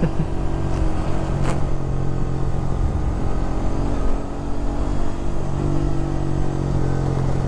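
Suzuki GSX150 Bandit's single-cylinder engine running steadily while riding, over wind and road rumble. The engine note eases off briefly about four seconds in, then picks up again.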